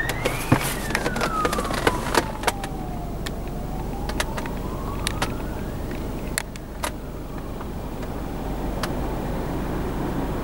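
Emergency vehicle siren on a slow wail, one long fall and rise in pitch, fading out after about six seconds. Steady road traffic noise continues, with a few sharp clicks.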